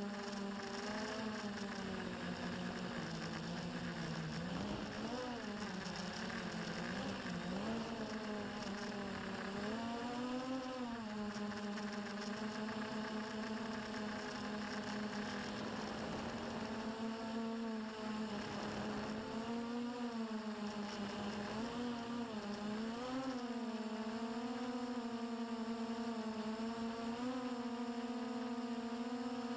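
Electric drone motors and propellers buzzing steadily with a whine of many overtones, heard from the drone's own onboard camera. The pitch swells and dips several times as the throttle changes while it manoeuvres.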